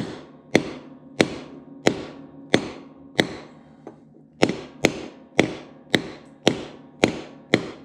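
Hammer blows on a socket used as a driver, knocking a press-fit ball bearing into a Cub Cadet garden-tractor front wheel hub. About a dozen sharp metallic strikes, each ringing briefly, come a bit under two a second, with a short pause near the middle.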